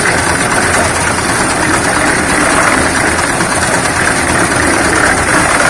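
Diesel engine of a drum concrete mixer running steadily as the drum turns, mixing concrete.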